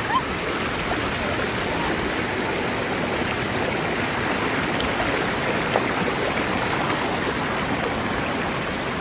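Shallow stream rushing over stones, a steady sound of flowing water.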